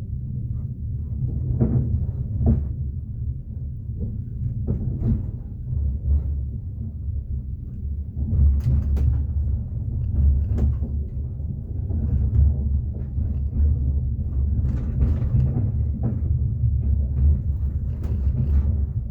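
Train wheels running on rails: a steady low rumble with irregular knocks and rattles over it, heard from inside the carriage.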